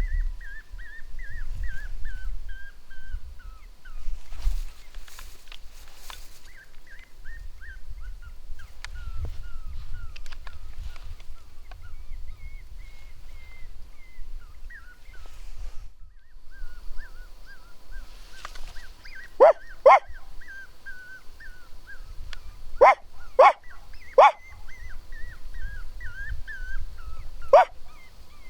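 Repeated wavering, whimpering coyote-style whines. In the second half come sharp yips: a pair, then three close together, then one more.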